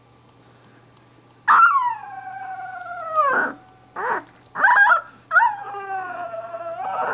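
Two-week-old Boxer puppy howling: a long howl starting about a second and a half in and falling in pitch, two short cries, then a second long howl near the end.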